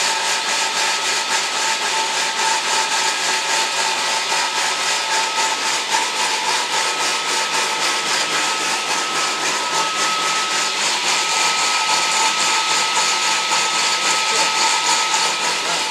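Homemade electric edging saw running steadily, a constant motor-and-blade whine over a noisy hiss.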